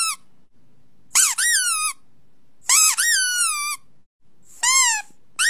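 A series of high-pitched squeaks played as test sounds for a dog, one about every second and a half, each rising sharply in pitch and then sliding down.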